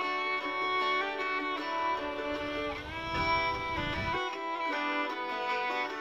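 Instrumental background music with a string melody, with a brief low rumble underneath about three seconds in.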